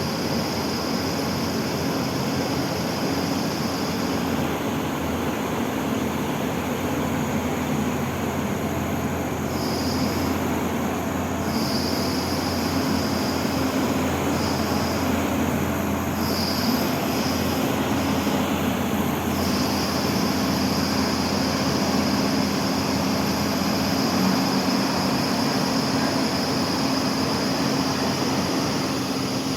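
Excavator running steadily, a low engine drone with a high-pitched whine that cuts out for a while in the middle and comes back in short spells before holding steady again.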